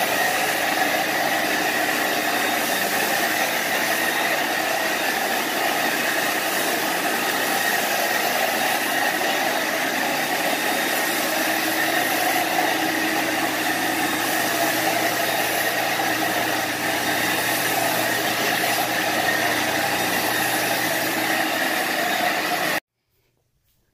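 Portable carpet extractor's vacuum motor running steadily with a high whine, cutting off suddenly near the end.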